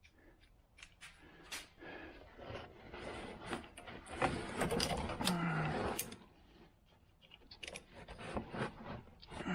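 Irregular metallic clicks and clinks of hand tools and car parts being worked on, with a busier stretch of scraping and clatter in the middle.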